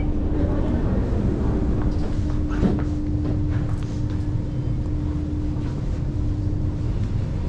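Carriage interior of a Singapore MRT Circle Line train pulling away after its doors have closed: a steady low running rumble with a constant hum over it, and a few light clicks and rattles about two to three seconds in.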